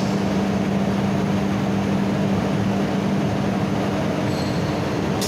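Micronizing mill running steadily: an even machine noise with a constant low hum.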